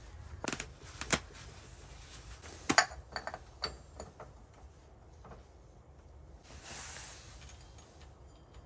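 Metal clicks and clinks of a scooter's CVT drive pulley parts being handled and the fan-shaped drive pulley face being slid back onto the crankshaft splines, loudest about three seconds in. A short hiss follows near the seven-second mark.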